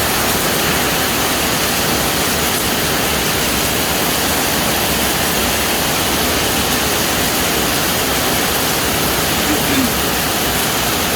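Loud, steady, unbroken rush of storm water, with no break or change.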